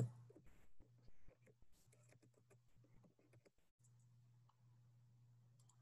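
Faint computer keyboard typing, a run of soft key clicks over the first three seconds or so, then near silence with only a faint low hum.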